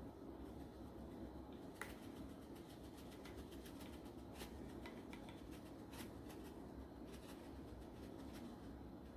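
Black pepper being applied to raw chicken legs: faint, irregular light clicks and rattles, busiest in the middle of the stretch, over a low steady hum.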